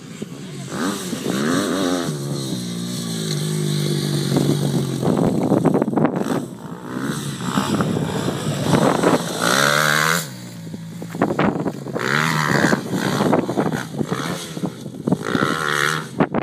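Motocross bike engine revving hard, its pitch climbing and dropping again and again as the bike accelerates and shifts around the track.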